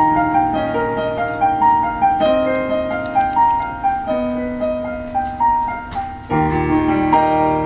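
Solo piano playing an instrumental interlude of the song, a slow run of single notes over held chords.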